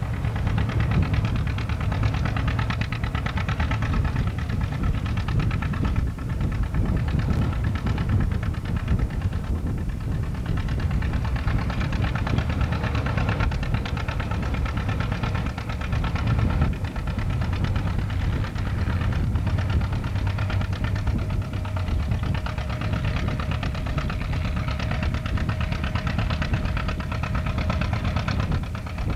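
John Deere two-cylinder tractor engine labouring under load as it pulls a weight-transfer sled, its exhaust beating in a steady rapid rhythm.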